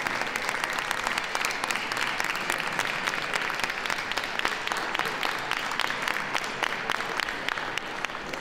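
Audience applauding, a steady patter of many hands clapping that dies down a little near the end.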